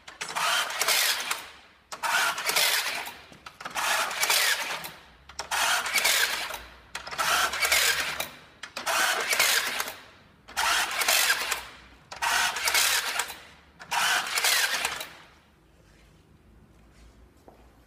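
Cordless rebar tying machine tying rebar crossings with wire: about nine quick tying cycles, each a second-long burst of the motor feeding and twisting the wire, one every couple of seconds. The tying stops near the end.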